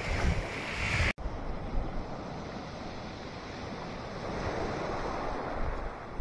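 Small waves breaking and washing up a shingle beach, with wind buffeting the microphone. The surf swells to a louder wash about four to five seconds in, after a brief dropout about a second in.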